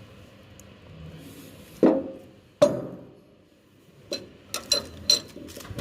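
Hand work on metal: two solid knocks with a short ring, then a quicker run of lighter metallic clinks and taps.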